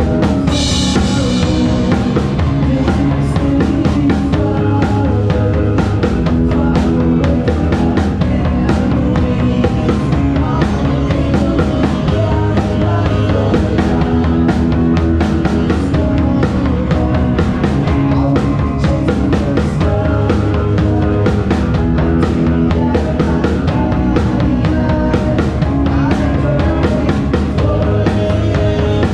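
A band playing live, heard from the drummer's seat, with the drum kit close and loudest and a steady beat of strikes throughout. A cymbal crash comes about half a second in.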